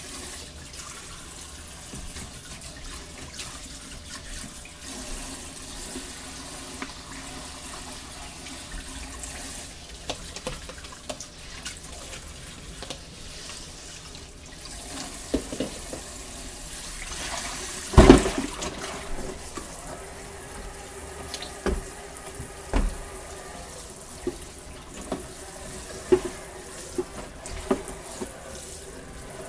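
Kitchen tap running into a sink, with scattered knocks and clinks of things being handled; the loudest is a clatter about two-thirds of the way through.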